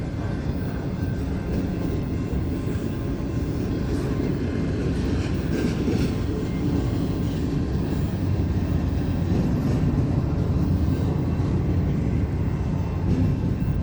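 Long CSX intermodal freight train rolling slowly through a grade crossing: a steady low rumble of wheels on rail.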